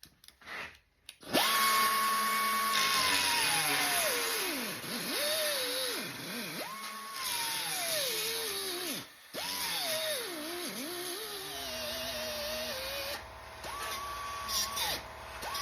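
Handheld power tool working into the Beetle's sheet-steel frame head: the motor's whine starts about a second in and repeatedly drops in pitch as it bogs under load, then climbs back up, over a gritty hiss of metal being cut. It stops briefly around the middle.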